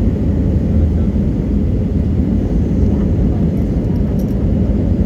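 Steady low rumble of an Airbus A320 on approach, heard inside the passenger cabin, with a few faint ticks a little past halfway.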